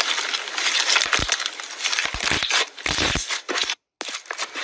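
Thick pink fluffy slime being stretched and squeezed by hand: dense sticky crackling with many small clicks and pops as it pulls and folds. It breaks off briefly near the end.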